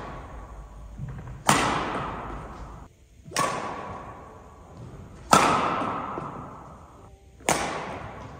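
Badminton smashes: four sharp cracks of the racket striking the shuttlecock, about two seconds apart, each ringing on in the echo of a large sports hall.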